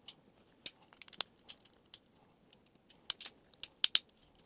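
Small clicks and rustles from a replacement plastic drill trigger switch and its wires being handled as the wire ends are worked into the switch's terminals. A sharper tick about a second in and a few louder clicks near the end.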